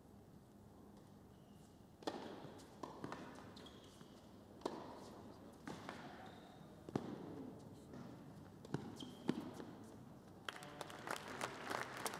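Tennis ball struck by rackets and bouncing on an indoor hard court during a rally: a string of sharp hits roughly a second apart. The point ends and crowd applause breaks out near the end.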